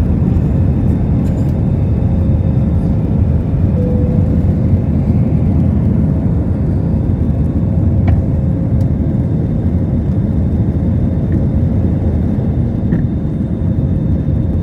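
Airbus A320-200 in its climb after takeoff: a loud, steady rumble of engines and airflow, with a faint steady hum on top.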